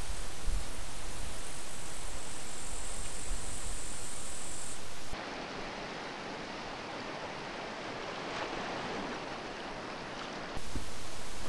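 A steady hiss of noise. About five seconds in it cuts to quieter, duller water sound of small waves lapping, and the louder hiss comes back shortly before the end.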